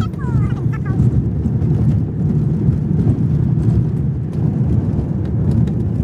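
Car cabin noise while driving on an unsealed dirt road: a steady low rumble of tyres and engine, with a few faint ticks near the end.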